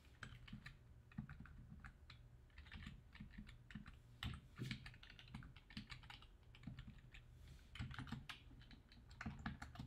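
Faint typing on a computer keyboard: irregular keystrokes, some in quick runs and some spaced apart.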